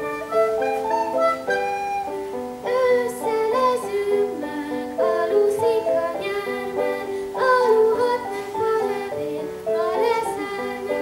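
A song played through a PA with a plucked-string instrumental accompaniment; from about three seconds in, a child's voice sings over it.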